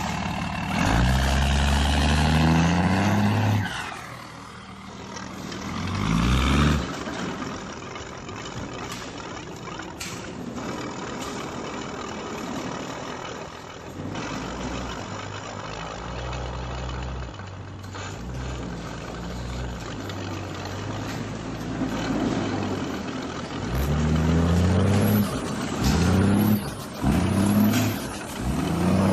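Volkswagen Worker 15-180 truck's diesel engine being revved. It rises twice in the first few seconds, runs steadily at idle through the middle, then gives a series of quick revs near the end.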